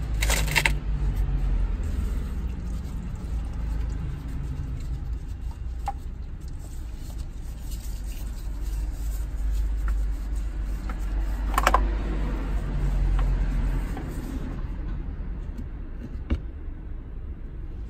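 Oil filter on a TGB Blade 550 ATV engine being unscrewed by gloved hands: a few sharp clicks and knocks, at the start, about two-thirds through and near the end, over a steady low rumble.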